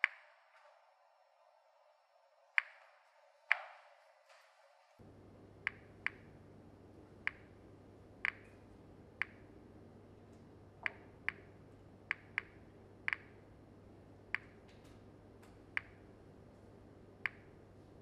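Series 900 mini-monitor Geiger counter clicking at random intervals, about one click a second, as it counts radiation from a large pile of bananas. A low steady hum comes in about five seconds in.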